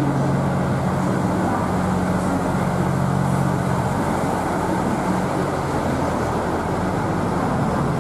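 KiHa 85 series diesel railcar train pulling out along the platform, its Cummins diesel engines running under power with a steady drone that eases about five seconds in.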